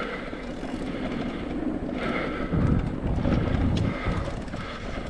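Mountain bike riding down a dirt bike-park trail: uneven rumbling tyre and trail noise with wind buffeting the microphone, swelling about halfway through.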